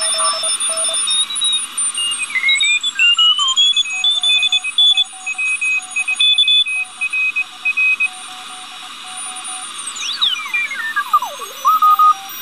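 Super-regenerative one-transistor receiver tuned on the 40-meter amateur band, playing through a small speaker: Morse code signals at several pitches beep on and off over a steady hiss. About ten seconds in, a whistle slides down from very high to low and back up as the receiver is tuned across a signal.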